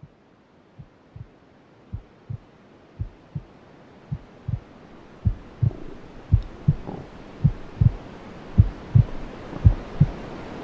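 Heartbeat sound effect: paired low thumps (lub-dub) about once a second, steadily growing louder over a hiss that swells beneath them.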